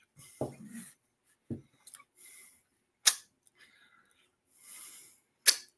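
Close handling noises: a few sharp, isolated clicks and soft rustles, with a couple of brief low vocal sounds in the first couple of seconds.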